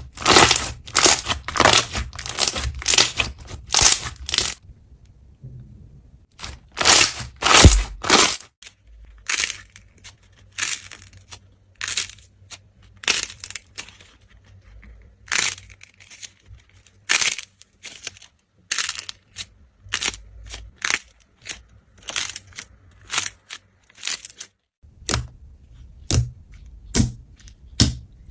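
Slime being squeezed and pressed by hand, giving a run of sharp crackling pops and clicks at about one or two a second, with a short lull about five seconds in.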